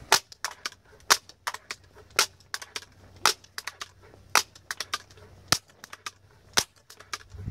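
Daisy 880 multi-pump air rifle being pumped up, its forearm pump lever clacking at the end of each stroke about once a second, with lighter clicks in between; the pump seal is freshly lubricated with motor oil.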